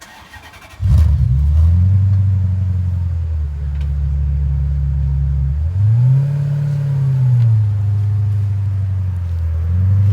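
Older Maserati car engine starting: a brief crank, then it catches about a second in and settles into a loud, steady, low-pitched idle. One rev blip rises and falls in pitch midway, with a smaller swell near the end.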